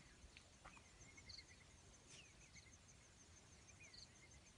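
Near silence with faint, scattered short falling bird chirps and a faint high, evenly repeating insect ticking.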